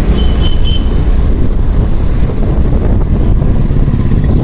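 Wind rushing and buffeting over a helmet-mounted phone's microphone on a moving motorcycle, with the engine and road noise mixed underneath. The phone has no external mic, so the sound is muddied.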